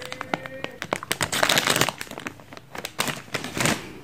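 A plastic packaging bag crinkling and rustling in the hands as a phone holder is taken out of it, with small clicks and taps. The crinkling comes in two louder stretches, about a second in and again near the end.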